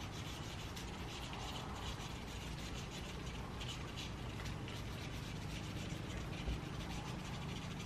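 Scratch-off card being scraped with the edge of a popper fishing lure: a continuous run of quick, light scratching strokes.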